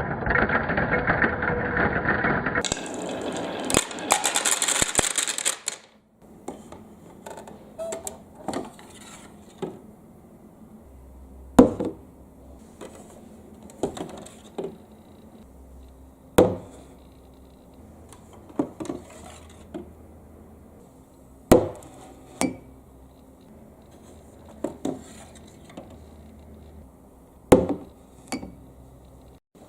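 Plastic balls rolling and clacking down a marble-run track: scattered sharp clicks and knocks, a few of them loud, over a faint background. It opens with a few seconds of music, then a rushing hiss that cuts off suddenly about six seconds in.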